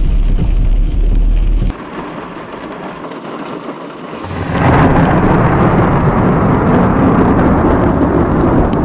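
Thunderstorm: thunder rumbling over rain. Near the start a deep low rumble cuts off suddenly, leaving quieter rain. About four and a half seconds in, a loud rumble of thunder builds and carries on over the rain.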